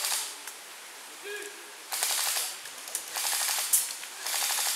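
Airsoft guns firing on full auto: four bursts of rapid clicking, a short one at the start, then three longer ones of about half a second to a second each.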